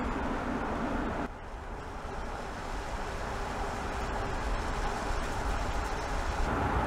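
Tyre and wind noise of a Mercedes-Benz GLC F-CELL fuel-cell electric SUV driving on a road, a steady rushing with no engine sound. It drops abruptly about a second in, then builds gradually.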